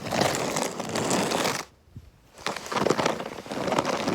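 Snow shovel scraping and crunching through packed snow, in two long pushes with a brief pause about halfway.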